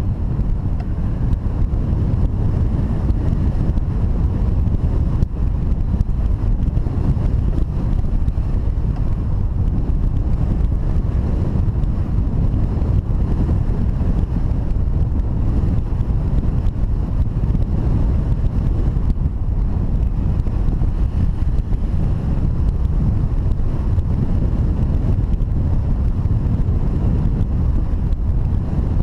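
Wind buffeting the microphone: a steady, loud, low rumble that runs on without a break.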